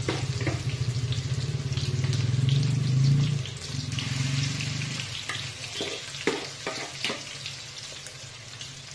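Boneless marinated chicken pieces deep-frying in hot oil in a steel kadai, a steady sizzle throughout. A low hum sits under it for the first five seconds or so, then a slotted metal spatula clicks against the pan a few times.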